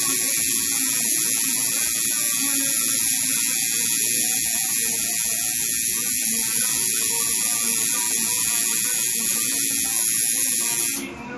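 Electric tattoo machine buzzing steadily while needling skin, cutting off suddenly near the end.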